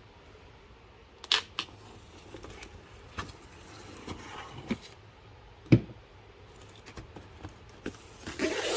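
Fireworks assortment packaging being cut open and handled: scattered sharp clicks and snips, a dull knock about two-thirds of the way through, and a burst of rustling near the end.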